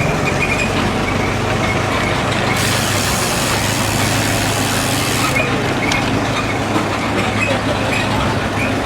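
Motorcycle engine running steadily while riding, with an even rush of noise over it.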